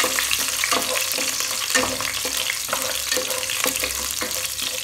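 Curry leaves and fenugreek seeds sizzling and crackling in hot coconut oil, stirred in the pan with repeated strokes.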